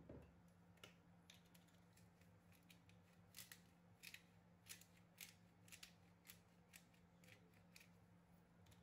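Hand pepper grinder being twisted, giving quiet, irregular short clicks as peppercorns are cracked, strongest in the middle. A soft low bump comes right at the start.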